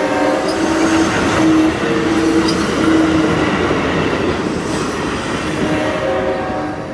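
Amtrak Superliner bilevel passenger cars rolling past on the rails, the wheels giving a squeal that comes and goes. The sound fades as the last car passes, about five seconds in.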